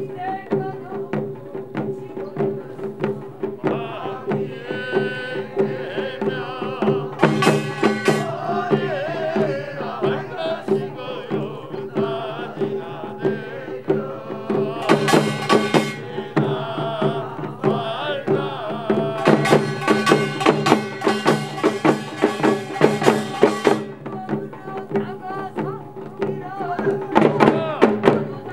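Korean pungmul farmers' band music: small hand drums and other percussion beating a dance rhythm continuously, with louder, brighter passages in several stretches.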